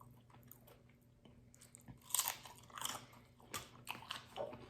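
Close-miked chewing with crisp crunchy bites of a griddled buffalo chicken quesadilla. It is quiet for the first couple of seconds, then irregular crunches start about two seconds in.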